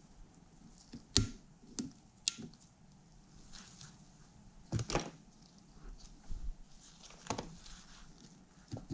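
Several sharp metallic clicks and knocks at irregular intervals, the loudest about a second in: a new retaining clip being worked onto a CV axle joint with snap-ring pliers and the joint being handled on the bench.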